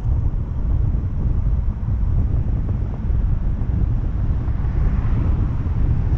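Wind buffeting the camera's microphone: a loud, steady, fluttering low rumble.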